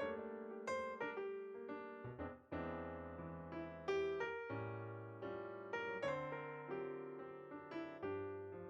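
Background music: a piano playing a gentle melody of struck notes, each ringing and fading.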